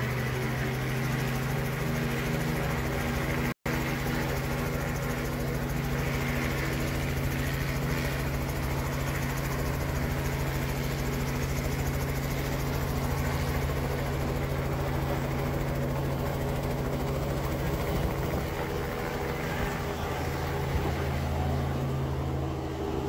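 Small helicopter running on the ground with its rotor turning, a steady engine and rotor drone that holds one pitch throughout, broken once for an instant about three and a half seconds in.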